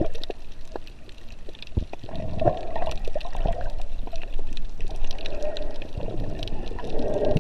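Underwater sound as heard through a waterproof action-camera housing: a muffled wash of moving water and gurgling that swells and fades, with scattered small clicks and knocks.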